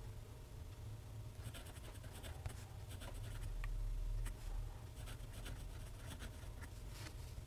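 TWSBI ECO fountain pen nib scratching faintly across Clairefontaine paper in quick cursive strokes, starting about a second and a half in, with short pauses between words, over a steady low hum.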